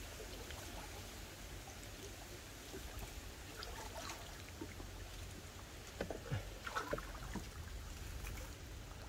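Shallow water disturbed by wading and net handling: light trickling with scattered small splashes, busiest about six to seven seconds in.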